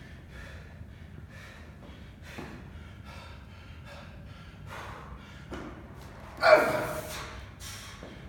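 A CrossFit athlete breathing hard between efforts, then a loud, sudden grunt about six and a half seconds in as he cleans a loaded barbell from the floor to his shoulders.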